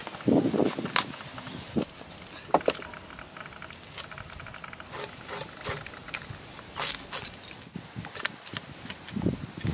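Climbing perch being scaled against a boti's iron blade: irregular rasping scrapes and sharp clicks as the scales are rubbed off, with a soft knock near the start.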